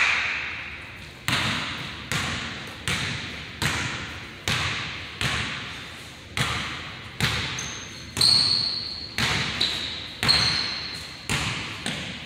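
Basketball bouncing on a hardwood gym floor in a steady dribble, about one bounce every second, each ringing briefly in the large hall. A few short high sneaker squeaks come in the second half.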